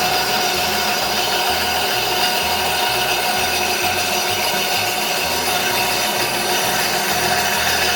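Ryobi RBS904 benchtop bandsaw running steadily with a fine 14-teeth-per-inch blade, sawing through wood.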